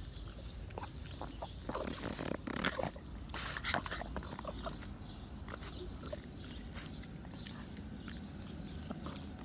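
A pug licking and mouthing a cherry: scattered short wet smacks and clicks, some louder bunches of them a couple of seconds in.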